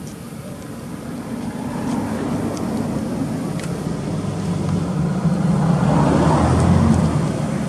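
A motor vehicle's engine passing by: a low hum that grows louder, peaks about six to seven seconds in, then eases off.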